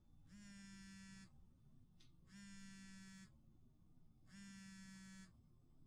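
Mobile phone vibrating with an incoming call: three faint buzzes, each about a second long and a second apart.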